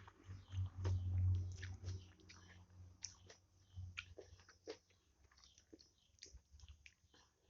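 A person chewing a mouthful of mie ayam (chicken noodles) close to the microphone: a string of short mouth clicks and smacks, loudest in the first two seconds.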